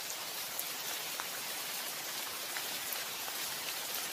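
Steady rain: an even hiss of falling rain with scattered single drop ticks.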